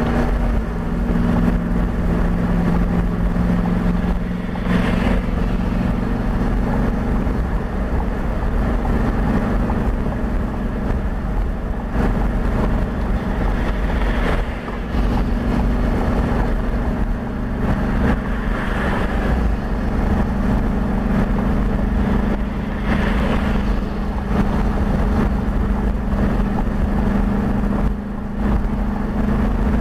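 Road and engine noise inside a moving car's cabin at highway speed, played back at double speed: a steady drone with a low hum, swelling briefly a few times.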